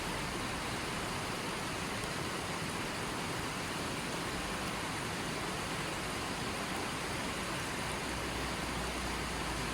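Stream water running steadily over rocks, a constant even rush with no changes.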